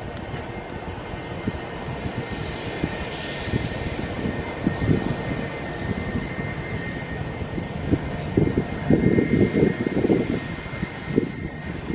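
Airplane engine noise: a steady rumble with a thin, steady whine, swelling louder about two-thirds of the way in.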